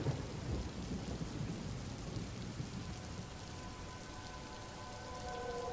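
Steady rain falling, with a low rumble of thunder in the first couple of seconds. Faint steady tones come in after about four seconds.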